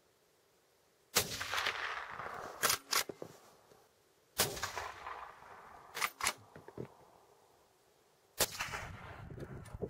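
Three rifle shots about three to four seconds apart, each a sharp crack that trails off over a second or so. A few short, sharp clicks follow the first two shots.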